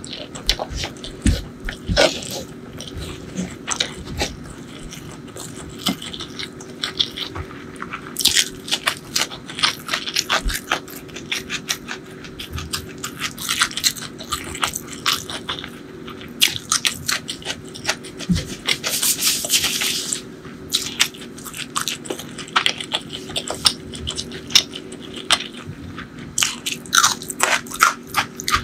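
Close-up crunching and chewing of a mouthful of rice and crispy fried strands eaten by hand, in dense, irregular crackles, with a louder burst of crunching about two-thirds of the way in.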